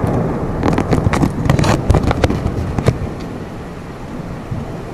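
Deep rolling rumble of thunder from a nearby thunderstorm, dying away after about three seconds. A run of sharp cracks and knocks comes in the first three seconds.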